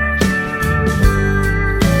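Background music: country-style tune with slide guitar over a steady beat.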